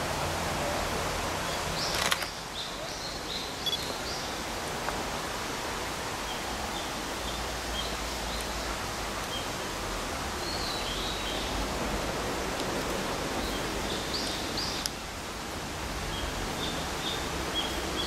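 Outdoor streamside ambience: a steady rushing from a shallow stream, with short high bird chirps every few seconds. A sharp click sounds about two seconds in.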